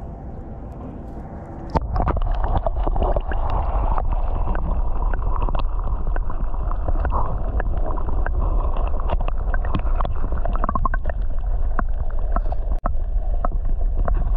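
Underwater sound through a submerged action camera: muffled water sloshing and gurgling over a low rumble, with many small clicks and pops. It starts abruptly about two seconds in, as the camera goes under.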